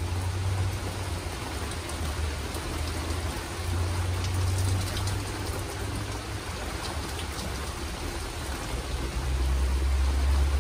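Steady rain falling during a thunderstorm, an even hiss with fine pattering ticks, over a low rumble that swells and fades several times and grows loudest near the end.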